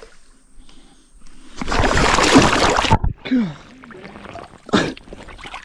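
A loud rushing noise lasting about a second and a half, then a short falling voice sound and a second, shorter rush near the end.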